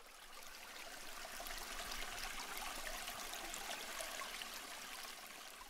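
Running water: a steady rushing and trickling, fading in at the start.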